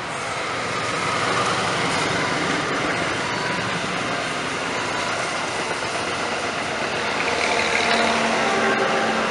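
Indonesian passenger train, the KA 195 Sri Tanjung, running past at speed: a steady rush and clatter of coach wheels on the rails that swells in the first second. A car passes close by at the start.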